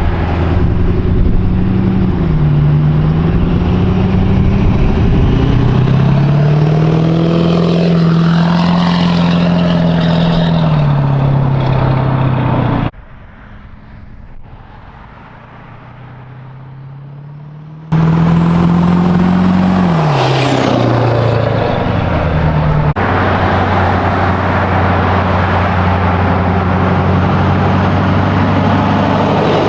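Ford F-250's 6.7 L Power Stroke V8 diesel, fitted with an S366 non-VGT turbo, running and being driven in several edited clips. The engine note rises and falls with throttle, a high whistle climbs for a moment about 19 seconds in, and the engine sounds much quieter from about 13 to 18 seconds in.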